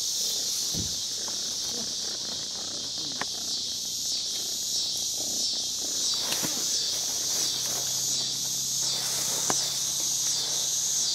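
Steady, high-pitched chorus of insects pulsing in an even rhythm, with faint scattered rustles and ticks beneath it.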